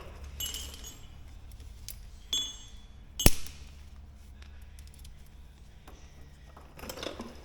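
Small metal parts clinking with a brief ringing tone, twice, then one sharp click about three seconds in, the loudest sound, with some rustling near the end: hands and tools working metal fittings while a landing-gear bungee is worked over a bolt.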